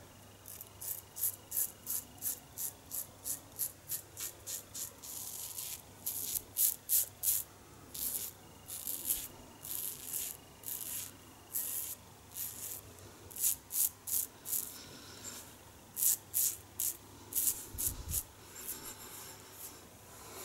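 A 1930s Gillette "New" Long Comb open-comb safety razor with a double-edge blade scraping through lathered stubble: a long run of short, crisp rasping strokes, about two a second, with a few brief pauses.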